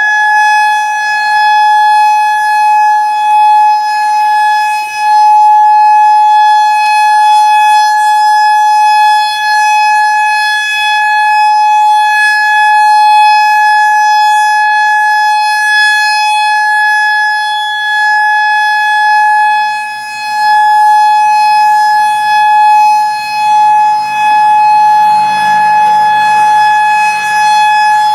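Federal Signal EOWS 612 electronic outdoor warning siren sounding its steady Alert tone, a loud single-pitch tone held without change after winding up, as in a monthly tornado siren test.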